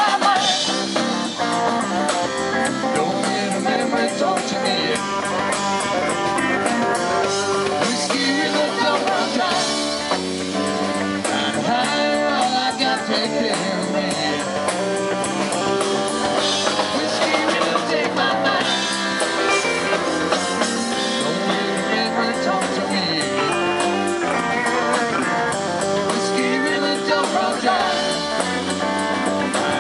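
Live band playing with electric guitar, electric bass and drum kit, loud and continuous.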